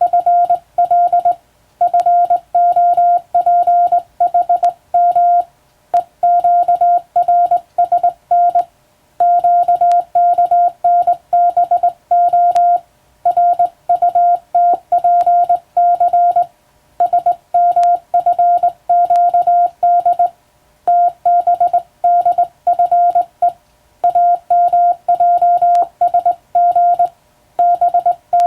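Morse code sent with a telegraph key: a single steady tone around 700 Hz keyed on and off in quick dots and dashes. The dots and dashes form letter groups separated by short pauses, as in sending practice of telegram text.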